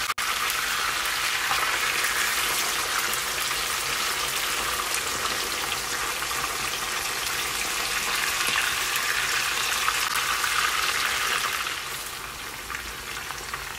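Kingfish steaks frying in hot oil in a pan: a steady sizzle that drops to a quieter level about twelve seconds in.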